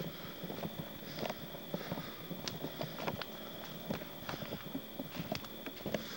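Footsteps: irregular knocks and scuffs, a few a second, with a faint steady high tone beneath.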